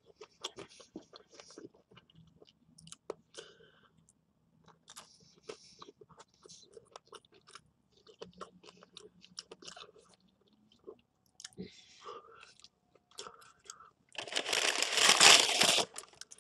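Close-up chewing and crunching of pizza: an irregular run of short crunches and mouth clicks with brief pauses. About two seconds before the end, a much louder crinkling rustle of wrapping being handled.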